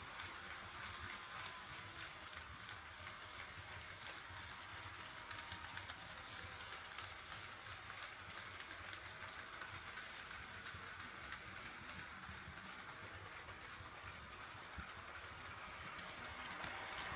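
HO scale model train running on track: a quiet, steady rumble and hiss of the wheels and motor.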